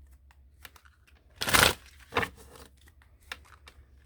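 A deck of tarot cards being shuffled by hand: a loud rush of cards about a second and a half in, a shorter one soon after, and light card clicks between.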